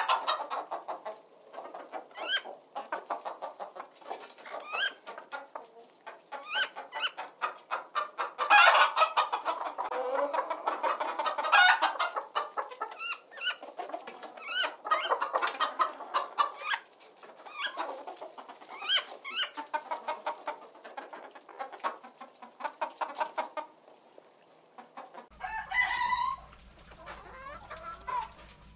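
A flock of chickens clucking, the clucks coming in quick runs with short rising calls between them. Near the end the sound changes to a quieter recording with a low hum under a few rising calls.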